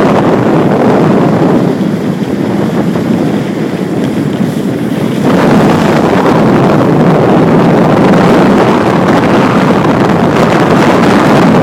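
Wind rushing over the microphone of a skier moving downhill, mixed with the hiss of skis sliding on packed snow; it grows louder about five seconds in.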